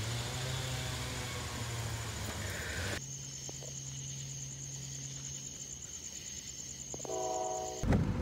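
Night insects (crickets) chirping in a steady, rapid high pulse over the low hum of an engine. Near the end comes a short train horn blast.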